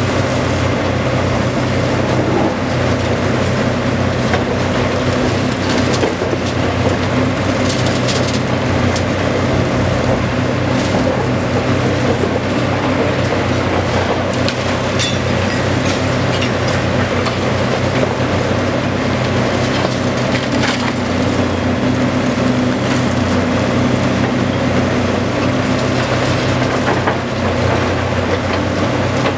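High-reach demolition excavator's diesel engine running steadily, with scattered cracks and crunches of concrete and rubble breaking as its attachment bites into the building.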